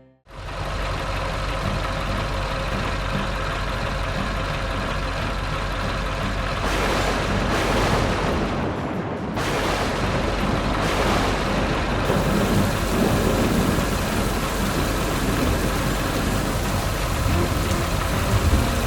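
Heavy vehicle engine running steadily under a dense rushing noise, with a few louder swells of the noise around the middle.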